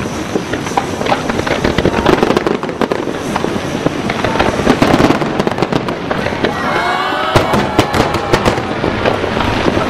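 Large aerial fireworks display: a dense barrage of shells bursting, with many sharp pops and crackles in quick succession. Some wavering pitched sounds rise and fall about seven seconds in.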